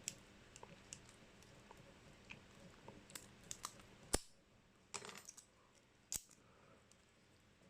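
Faint metallic clicks and scrapes of a tension tool being worked in a Delta padlock's keyway, with a few sharper clicks in the second half, the loudest about four seconds in.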